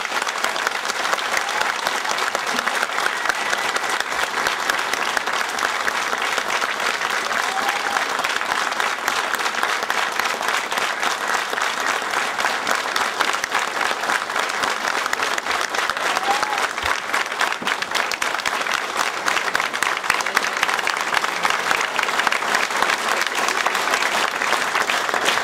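A large audience applauding, dense sustained clapping at a steady level.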